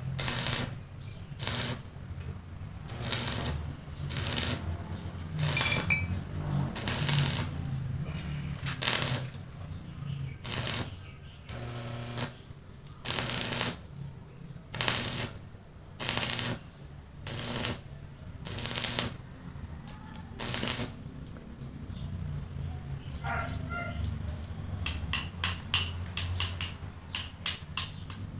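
Regular scraping strokes on the metal of a motorcycle rim being repaired by hand, about one every second or so, over a low steady hum; near the end, a run of quick light taps.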